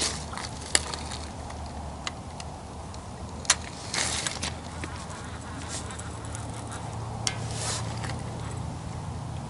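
Handling noise as a catfish rod is lifted from its holder: a few sharp clicks and brief scrapes, over a low steady hum.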